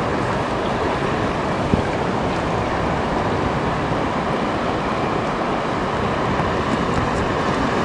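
Steady rushing of river current, with wind buffeting the microphone and a single brief click a couple of seconds in.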